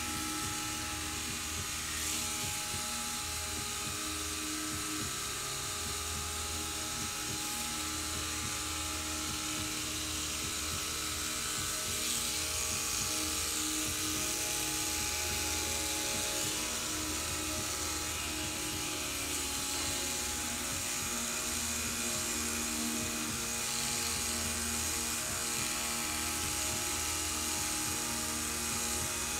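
Corded electric pet clippers buzzing steadily as they shave a cat's long fur, over background music.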